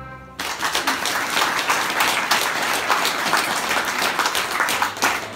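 Music stops about half a second in, and a small audience breaks into applause that carries on steadily.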